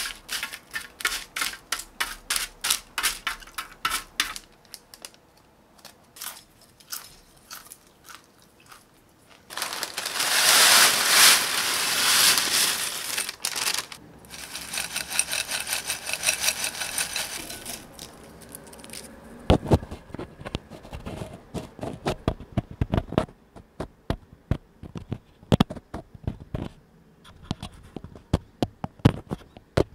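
Crisp caramel popcorn being handled and eaten: a string of sharp clicks as pieces are picked over on parchment, a loud dry rustle lasting about four seconds near the middle, then irregular crunching of the popcorn being chewed.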